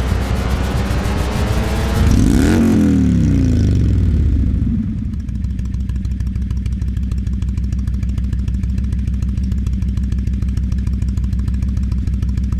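Indian Thunder Stroke 111 49-degree V-twin motorcycle engine running. About two seconds in it is revved harder, the revs fall away, and it settles into a steady, even idle.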